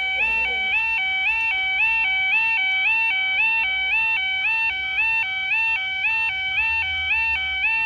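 Level crossing yodel alarm: a loud two-tone warble that steps between a lower and a higher pitch about twice a second, warning that the crossing is closed for an approaching train.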